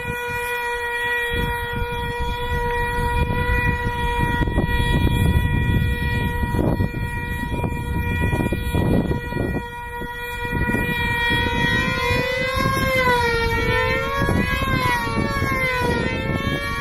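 Small 2.5 cc F2D control-line combat model engines screaming at full revs. The pitch is high and steady for the first twelve seconds, while the models are held on the ground. From then on it rises and falls about once a second as a model circles on its lines, with a gusty low rumble underneath.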